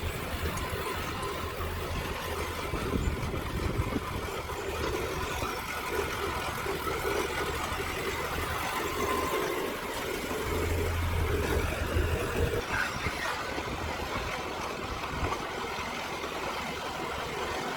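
Diesel engine of heavy earthmoving equipment, a small bulldozer or dump truck, running steadily with a low drone. The drone swells for a couple of seconds partway through.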